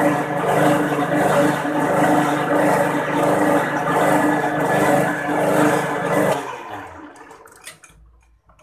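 Metal lathe running with a stainless bolt spinning in its chuck while its head is turned down: a steady mechanical drone with a few steady tones. The lathe is switched off about six seconds in and winds down to a stop.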